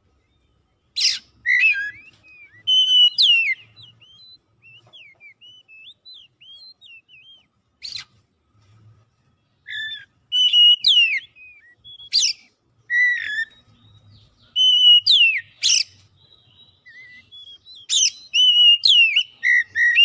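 Oriental magpie-robin singing: loud phrases of clear whistled slurs mixed with sharp harsh notes. A quieter stretch of soft warbling runs between about four and eight seconds in.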